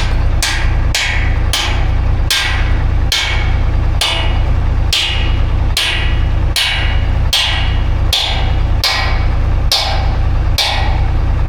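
Repeated sharp metal strikes, a little faster than one a second and slightly uneven, like a hammer driving a part on farm equipment, over a steady low hum.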